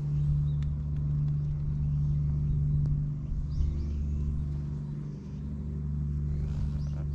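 An engine running steadily at idle: a constant low hum that dips briefly about five seconds in.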